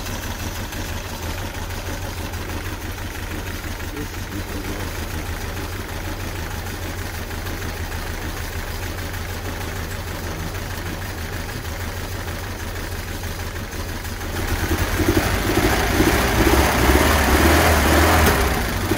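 1972 Triumph Spitfire Mark IV's four-cylinder engine with twin carburettors idling steadily, then revved up and held higher about three-quarters of the way through.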